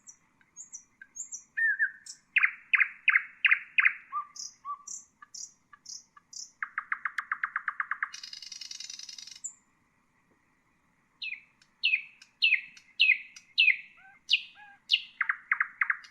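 Nightingale singing a string of varied phrases: high thin notes, loud falling whistles, a fast rattling trill and a harsh rasping buzz. After a pause of about two seconds comes a run of falling whistles and another quick trill near the end.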